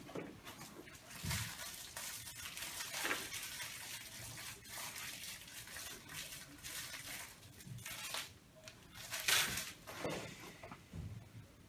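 A person making a string of small, irregular noises, the kind of little mouth and nose sounds that distract people in a quiet room. They come as short, faint strokes at uneven intervals, the loudest about nine seconds in.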